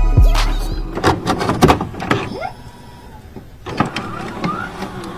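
Intro music ending about a second in, followed by a string of sharp clicks and short glitchy electronic noises.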